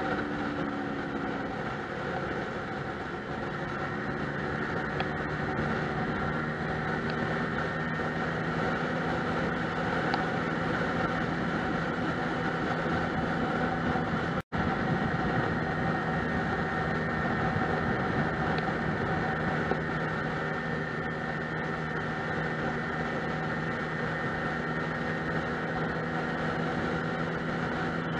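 Lexmoto Milano scooter's engine running steadily at cruising speed, mixed with wind and road noise. The sound cuts out for an instant about halfway through.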